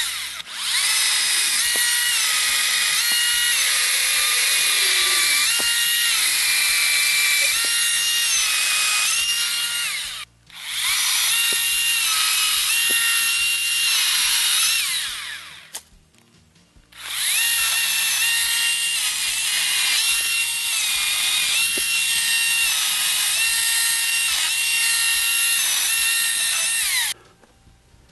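Ryobi 40-volt 14-inch cordless chainsaw cutting into a tree: the electric motor and chain run with a high whine whose pitch dips and recovers as the saw loads up in the wood. It runs in three long stretches, stopping briefly about ten seconds in and again for about a second around sixteen seconds in.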